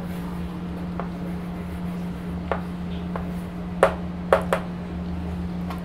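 A few scattered sharp taps, the loudest three close together around the middle, over a steady low hum.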